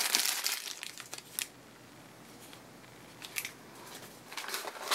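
Crinkling and rustling of a thin clear plastic bag as a camera battery charger is pulled out of it, fading after a second or so into a quiet stretch with a few light clicks and rustles near the end.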